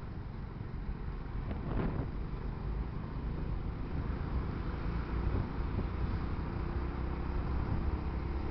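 A car driving on a road: a steady low rumble of engine and tyres with some wind noise, and a brief louder whoosh about two seconds in.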